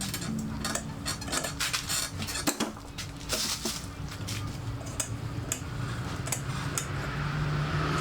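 Metal hand tools and engine parts clinking and tapping against each other in irregular sharp clicks while the cylinder head is taken apart, over a low steady hum.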